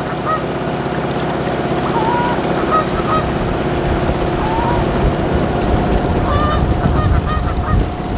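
Canada geese honking in short calls several times, over the steady hum of the boat's motor. Wind rumbles on the microphone from about three seconds in.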